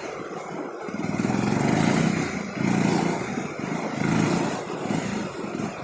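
Bajaj Pulsar 220 motorcycle's single-cylinder engine revving, the engine sound swelling and dropping back several times as the bike is worked over rough ground.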